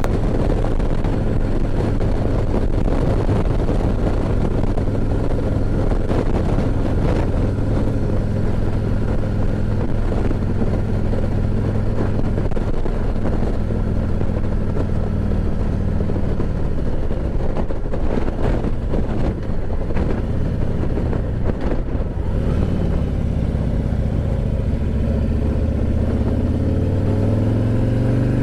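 Harley-Davidson V-twin motorcycle engine running steadily at road speed. The engine note falls a little past halfway, then climbs steadily in pitch near the end as the bike accelerates.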